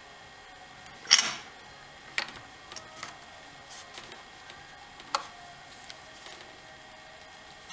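Metal spark plug socket clicking and knocking against the chainsaw's engine as a new spark plug is put in. It makes a handful of short, sharp clicks spread over several seconds, the loudest a brief scraping clink about a second in.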